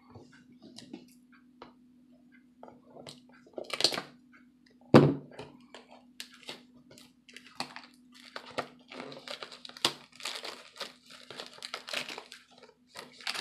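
Clear cellophane wrap on a box of wrestling trading cards crinkling and crackling as it is handled and torn open, thickening over the last few seconds, with one sharp knock about five seconds in. A steady low hum runs underneath.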